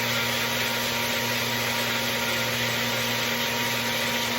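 Magic Bullet blender motor running at a steady pitch, blending a thick mixture of ice cream and milk.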